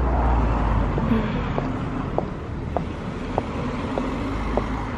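Footsteps of slip-on shoes on paving slabs, short even taps about every 0.6 s at walking pace, over a steady low rumble of street noise.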